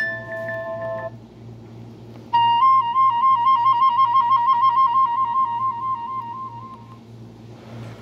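Nokia Asha 300 ringtones played through the small built-in loudspeaker of a Nokia 130 phone. One tone cuts off about a second in. After a short pause another begins: a rapid warble between two close notes that lasts about four and a half seconds and then fades.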